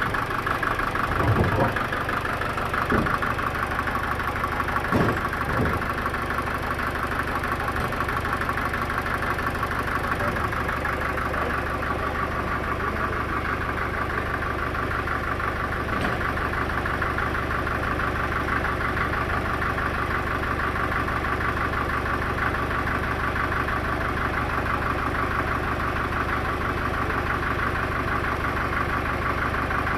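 An engine running steadily at idle, with a few knocks in the first six seconds.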